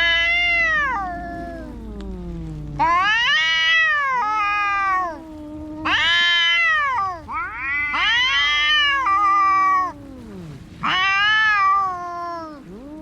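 Cats caterwauling in a fight: about five long, loud yowls one after another, each wavering and bending in pitch, with two voices overlapping near the middle, over a low steady growl.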